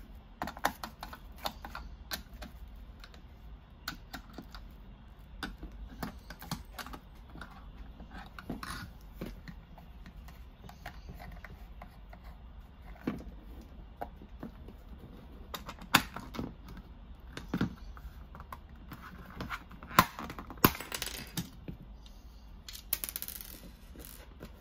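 White plastic shell of a HIFU handpiece being handled and taken apart by hand: irregular clicks and taps of hard plastic parts, with a few louder knocks and brief scraping in the second half.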